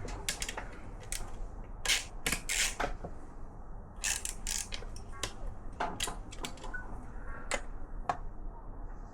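Hand tools and loose metal engine parts clicking and clinking in irregular clusters, over a low steady hum.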